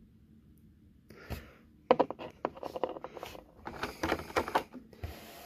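Clear plastic blister tray crinkling and clicking as fingers pick through it: a quick, uneven run of sharp clicks and crackles starting about two seconds in.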